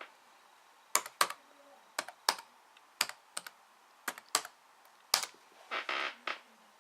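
Laptop keyboard keys on a ThinkPad T61 being pressed one at a time: about five clicky keystrokes, each a quick double click, spaced about a second apart, with a soft hiss near the end.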